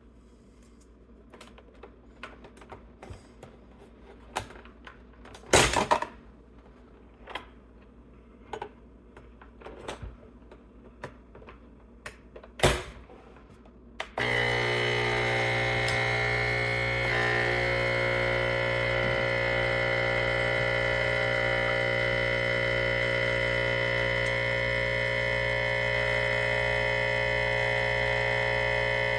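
Light clicks and knocks of the machine being handled, two of them sharper, then about halfway through the ChefWave capsule espresso machine's pump starts suddenly and runs with a loud, steady hum while brewing a shot.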